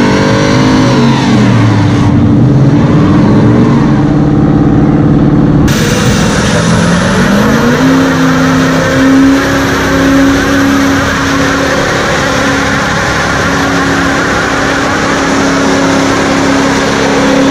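Ford Mustang doing a burnout, its engine revving up and down over spinning tyres. After a cut about six seconds in, a GMC dual-rear-wheel pickup does a burnout: its engine climbs and then holds at a steady high pitch over the hiss of its spinning rear tyres.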